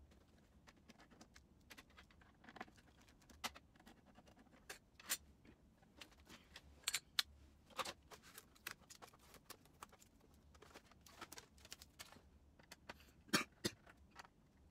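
Scattered clicks and taps of plastic parts and a screwdriver being handled on an HP OfficeJet Pro 8710 inkjet printer, played at four times speed, with one sharper click near the end.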